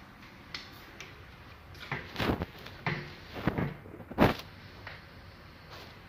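Household objects being knocked and moved about, a cupboard or door among them: a short run of knocks and scrapes from about two seconds in, ending in one louder bang a little past four seconds.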